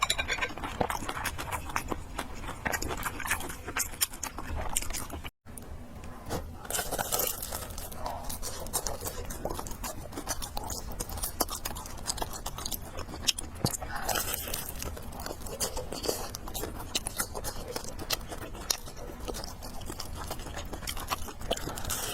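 Close-miked eating: chewing and biting on fried noodles and pork, a steady run of small wet clicks and crunches. The sound drops out for an instant about five seconds in.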